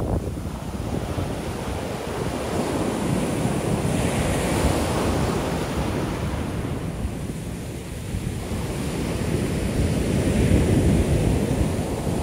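Ocean shore-break waves crashing and washing up the beach in rolling surges. The loudest surge comes near the end.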